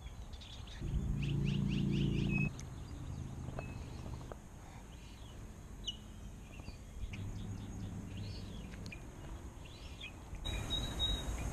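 Outdoor ambience with small birds chirping repeatedly. A low steady hum comes in twice, louder about a second in and fainter later on.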